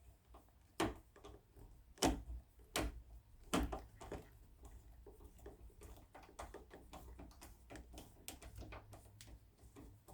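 Hand screwdriver working a screw out of a doorknob's plate: four sharp clicks in the first four seconds, then a quick run of small ticks and scrapes as the screw turns.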